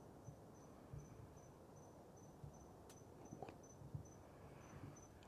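Near silence with a cricket chirping steadily, a short high chirp about three times a second.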